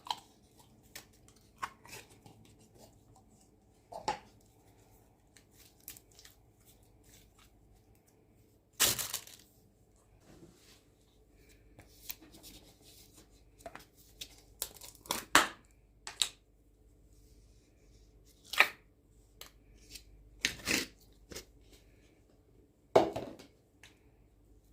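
Slime being stretched, pulled apart and mixed by hand, giving irregular sticky crackles and pops, a handful of them much louder than the rest.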